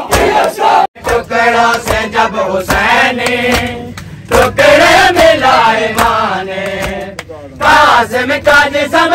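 A group of men's voices chanting a Muharram mourning lament (noha) together in long, rising and falling sung lines. A crowd's shouted chant cuts off sharply about a second in, and the sung chanting begins after it.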